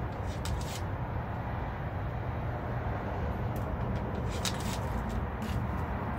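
Steady low outdoor background rumble, with a few faint soft ticks.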